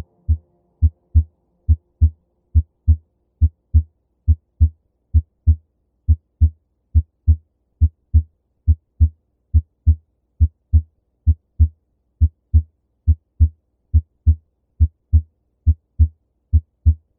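Normal heart sounds heard through a stethoscope at the aortic area, the second intercostal space right of the sternum: a steady 'lub-dub', a little under one beat per second. Each beat is a pair of short low thuds, the first and second heart sounds, with the aortic second sound normal.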